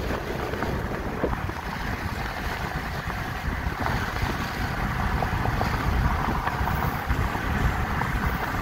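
Steady wind rush and road noise inside a moving car with the window open.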